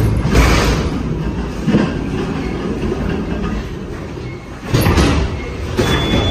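Electric stand-on pallet truck driving into a trailer over the steel dock leveller and trailer floor: a rolling rumble with irregular clatters and knocks, and a thin high steady tone near the end.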